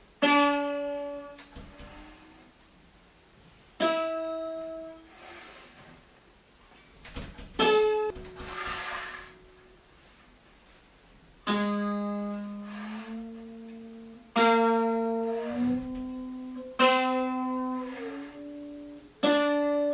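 A PHYWE laboratory monochord's single string is plucked seven times, about every three seconds. Each note rings out and fades, and the movable bridge is shifted between plucks, so each note has a different pitch. A few times the pitch slides while a note is still ringing.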